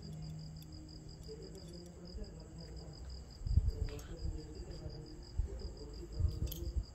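A cricket chirping steadily in quick, even pulses, about seven a second. Dull knocks and rustles of handling come about three and a half seconds in and again near the end.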